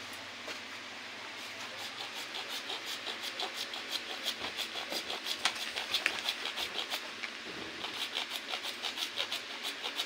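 Hacksaw blade, held by hand without a frame, sawing through blue PVC pipe in quick back-and-forth strokes, a steady rhythmic rasping that picks up pace and strength after the first couple of seconds.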